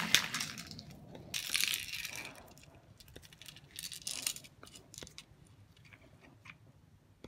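A DuraCoat aerosol paint can handled in gloved hands: a couple of soft rustles, then scattered light clicks and clinks.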